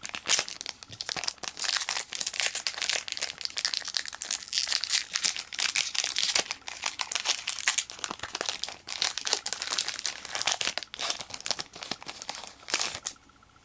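Foil wrapper of a Pokémon trading card booster pack crinkling and tearing as it is opened by hand, a dense run of crackles that stops shortly before the end.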